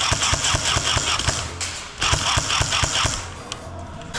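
Airsoft gun firing on full auto in two long strings of rapid shots, with a short break about one and a half seconds in.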